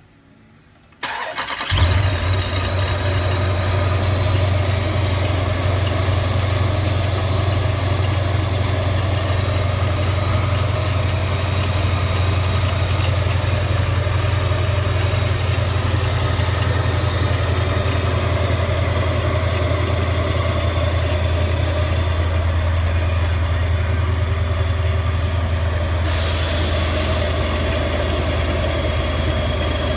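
Supercharged 6.4-litre Hemi V8 of a 2014 Jeep Grand Cherokee SRT, fitted with a Procharger D-1SC kit, cranking and catching about a second in, then idling steadily on its first start after the install.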